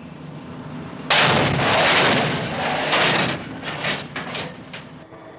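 Freight cars in a hump yard coupling with a loud crash about a second in, followed by a second jolt and rattling clanks of couplers and car bodies dying away.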